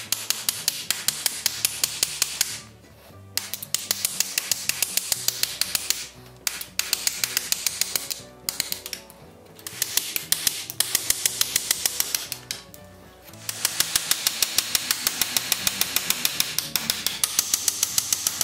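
Rapid, even ball-peen hammer taps on an iron rivet through a sleigh runner's steel strap, backed by a heavy hammer head, peening the rivet over. The taps come in five runs of a few seconds each with short pauses between, over soft background music.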